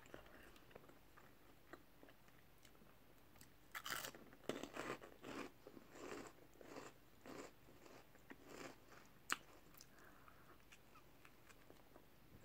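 A person biting into and chewing a crunchy puffed snack: a run of crisp crunches starting about four seconds in and dying away by about ten seconds, with one sharp crack among the last of them.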